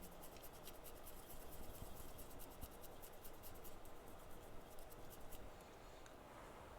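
Faint, rapid clicking and scratching of small metal tools handled on a workbench, stopping about five and a half seconds in.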